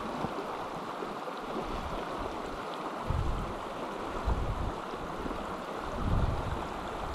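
Steady rush of river water, with a few short low bumps about three, four and six seconds in.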